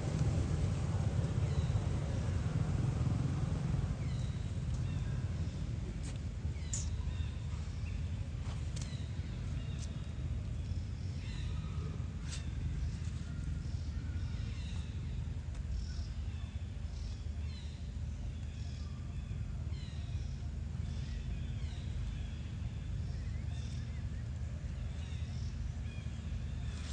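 Monkeys giving many short, high squeaks that slide down in pitch, repeating through most of the stretch, over a steady low rumble. A few sharp clicks are mixed in.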